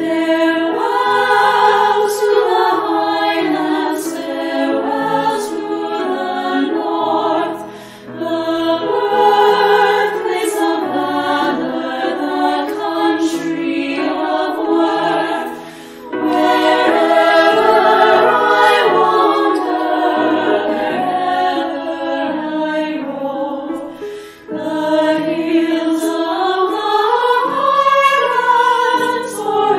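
Choir singing, in phrases broken by short pauses about every eight seconds.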